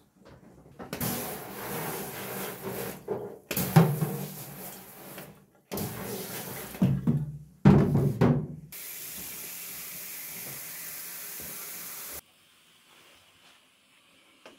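Water from a plastic tub splashing into a stainless-steel sink in several uneven surges, then a hand-held shower sprayer running with a steady hiss for about three and a half seconds before it cuts off suddenly.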